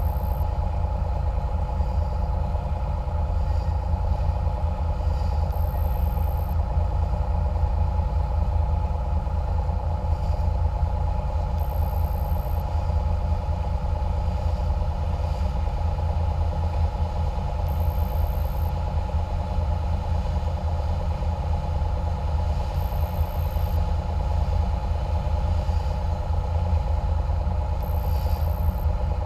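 Catamaran cruiser's engine running steadily under way: a constant low drone with a steady whine over it.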